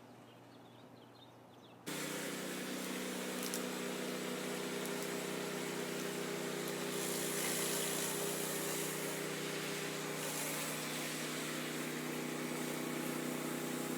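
Pressure washer running: a steady engine drone with a spray hiss over it, cutting in suddenly about two seconds in.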